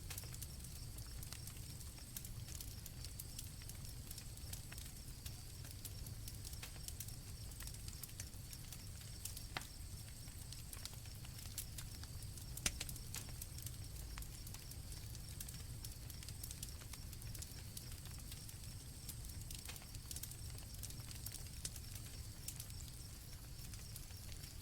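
Campfire crackling, with scattered sharp pops over a low rumble, and crickets chirping steadily in the background.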